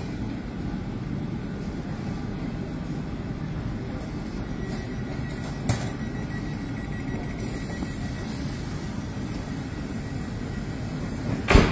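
Steady low rumble of electric passenger trains standing at a station platform, with a short sharp knock a little before halfway and a louder thump near the end.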